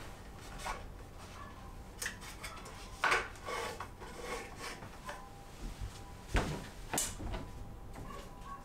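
Plastic clothes hangers being hooked onto a wooden hanging rail: scattered light clacks and knocks of the hooks against the wood and each other, with clothes rustling in between.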